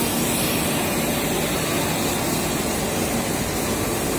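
Steady drone of cable production machinery running, an even hum and hiss with no separate knocks or clicks.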